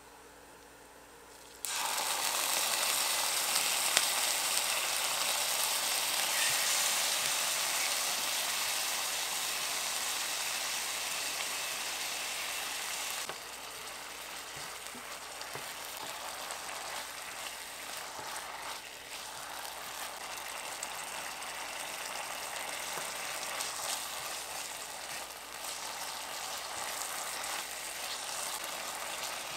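Canned tuna frying in hot oil and garlic in a ceramic-coated frying pan: a loud sizzle starts suddenly a couple of seconds in, then settles to a quieter steady frying sizzle about halfway through, with a spatula stirring against the pan.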